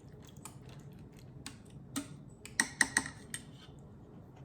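A utensil tapping and clinking against the metal inner pot of an Instant Pot, a scatter of light clicks with a louder burst of ringing clinks about two and a half seconds in.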